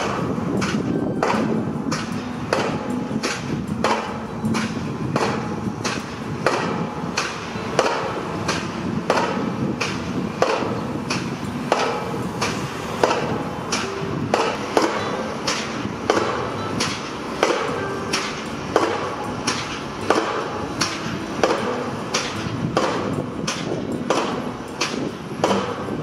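Crane-mounted pile driver hammering a pile: steady, evenly spaced blows with a metallic ring, about one and a half a second, over the steady drone of the rig's engine.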